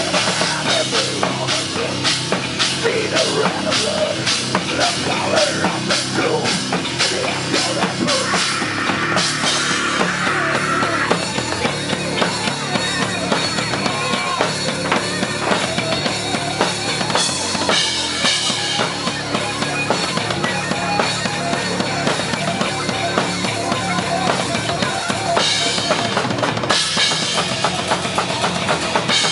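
Live heavy metal band playing an instrumental passage, with a pounding drum kit and bass drum up front in the mix; bright cymbal crashes come in about halfway through and again near the end.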